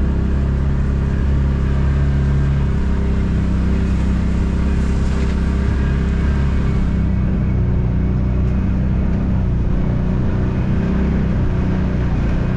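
Side-by-side utility vehicle's engine running steadily while driving, heard from on board the vehicle.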